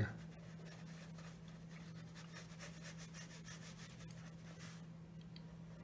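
A flat brush working paint onto watercolor paper in many short, faint strokes. A steady low hum runs underneath.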